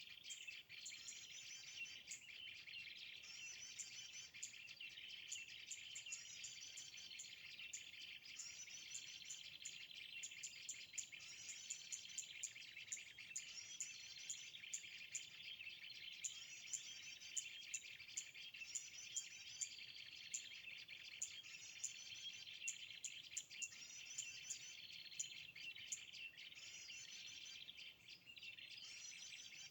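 Small birds singing in short repeated phrases every couple of seconds, with sharp chip notes, over a steady high insect-like buzz.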